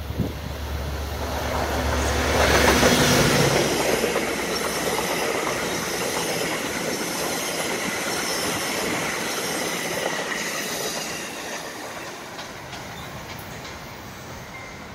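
Exo commuter train passing: the diesel locomotive's engine rumble builds to its loudest about three seconds in as it goes by. Then comes the steady rolling noise and wheel clatter of Bombardier MultiLevel double-deck coaches, fading over the last few seconds.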